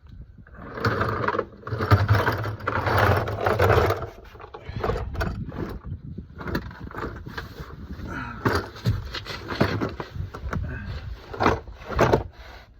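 Scraping and rattling handling noises, loudest and densest in the first four seconds, then scattered clicks and knocks.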